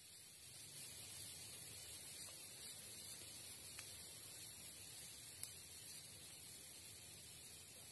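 Steady high-pitched drone of forest insects, even throughout, with a couple of faint ticks about four and five and a half seconds in.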